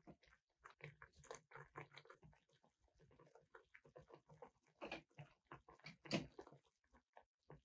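Soy-sauce-based noodle soup stock with bonito flakes simmering in an aluminium saucepan: faint, irregular bubbling and popping, with a couple of louder pops about five and six seconds in.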